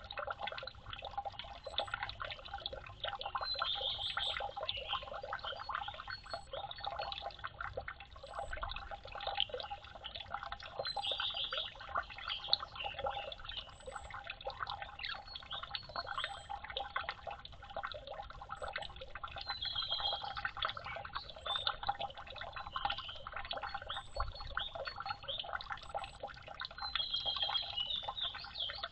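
Water splashing and dripping, a dense, even patter of small splashes with a few brief sharper bursts.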